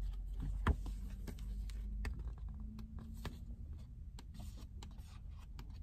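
Handling of a paperback picture book: scattered clicks and taps of fingers and paper on the cover, the sharpest a little under a second in, over a low steady hum.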